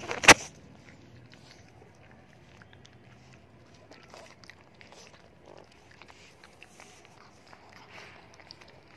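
Pug puppies crunching dry dog kibble off a concrete floor: faint, scattered crunches and clicks. A single sharp knock about a third of a second in is the loudest sound.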